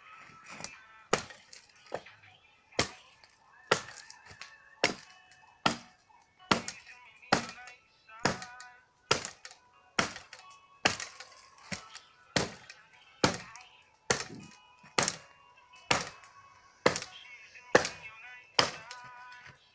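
Hatchet chopping dead wood at about one strike a second, each blow a sharp crack with a brief ringing after it.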